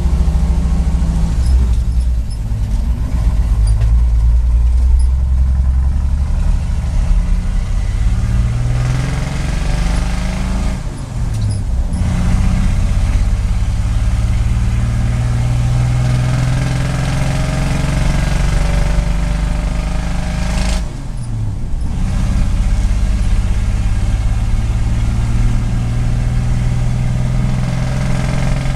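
1953 International R-162's 240-cubic-inch straight-six gasoline engine pulling under load, heard from inside the cab, its pitch climbing as the truck accelerates. The engine note drops away briefly twice, about 11 and 21 seconds in, as gears are changed, then settles into a steady run.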